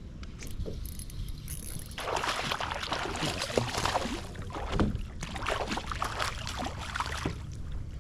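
Water splashing and sloshing around a kayak, starting about two seconds in and going on irregularly, over a low wind rumble on the microphone.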